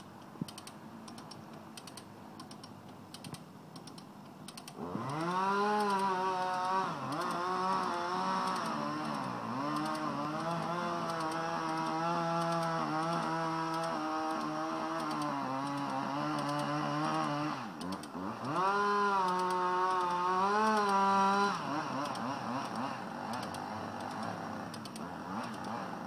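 Chainsaw cutting into a large willow trunk: about five seconds in it throttles up and runs under load, its engine note sagging and recovering as it bites, dips briefly, then revs hard again before easing off a few seconds before the end. Light rapid clicking is heard before and after the saw.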